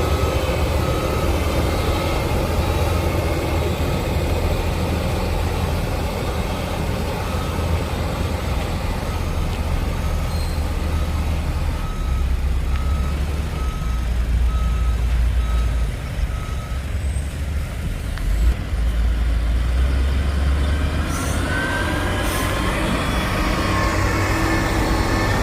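Heavy diesel engine of road-construction machinery running under changing load, with a reversing alarm beeping about once a second until about two-thirds of the way in. Two short hisses come near the end.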